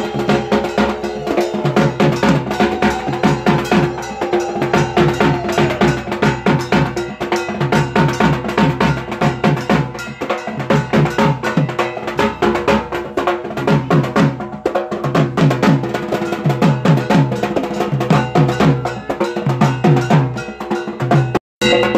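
Drums beaten in a fast, driving rhythm with a clanging bell-metal beat, the festival drumming typical of dhak and kansar at a Durga Puja ritual. The sound drops out for an instant near the end.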